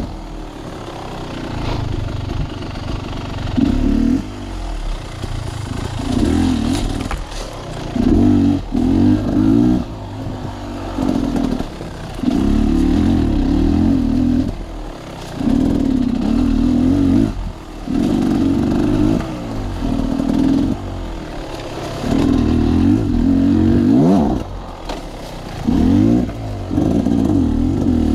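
Sawmill machinery running, with an engine note that rises and falls in repeated loud stretches of a few seconds each.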